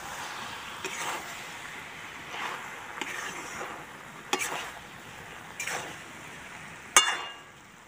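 Steel spatula scraping and stirring sliced mushrooms frying in a steel karahi over a low sizzle, in strokes about a second apart. A sharp ringing knock on the pan about seven seconds in is the loudest sound.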